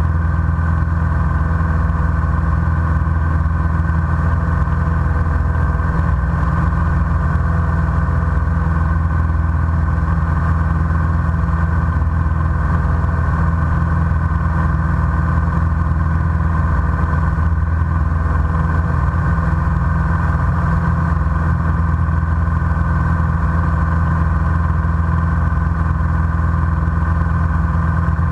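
Single-engine light aircraft's piston engine and propeller running steadily in cruise, heard from inside the cockpit.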